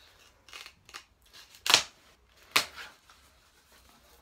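Cardboard snack packaging being handled and opened: a handful of short, sharp rustles and snaps, the loudest just under two seconds in.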